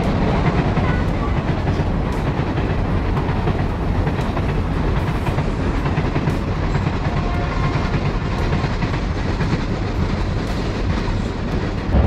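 Passenger train crossing a long railway bridge: a steady rumble of wheels on the rails, with light clacking.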